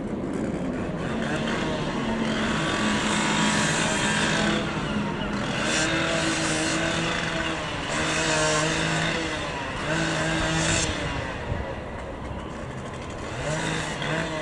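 Handheld cordless power tool cutting into the wrecked yacht's fibreglass and wiring. The motor runs in about five bursts, the first the longest, and there is a harsh high cutting noise each time the blade bites.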